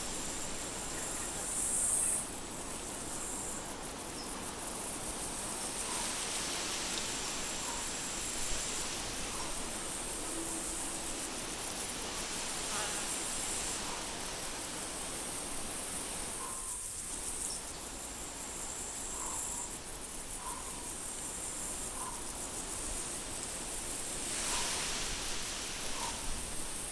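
Steady high-pitched insect chirring over an even hiss, swelling and fading, with faint short chirps now and then.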